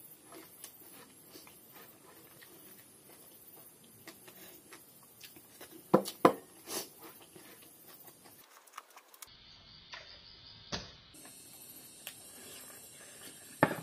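A person eating by hand: quiet chewing and mouth sounds with soft clicks, and a couple of sharper smacks about six seconds in.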